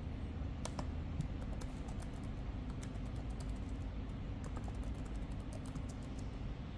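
Typing on a computer keyboard: quick, irregular key clicks as an email address is typed into a form, over a steady low hum.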